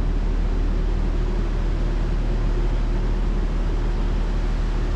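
Steady low hum of an idling diesel train engine, unchanging throughout.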